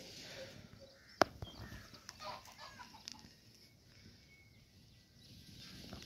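Chickens clucking faintly, with one sharp click a little over a second in.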